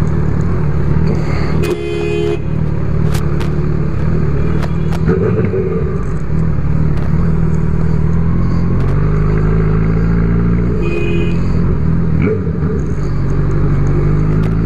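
Honda CB1000R's inline-four engine running at low revs in traffic, then rising in pitch about nine seconds in as the bike accelerates away. A short higher tone sounds twice.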